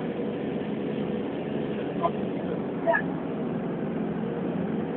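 Steady engine and road noise heard from inside a moving vehicle climbing a mountain road. Two short, sharp sounds stand out about two and three seconds in.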